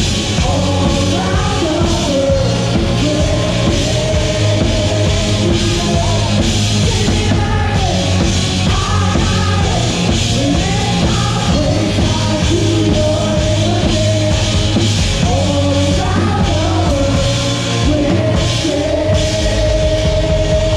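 A loud rock-style worship song: a singer's voice over a full band with drums and electric instruments, playing steadily throughout.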